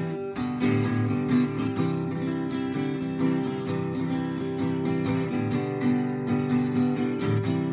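Acoustic guitar strumming a steady rhythm in an instrumental passage, with no singing.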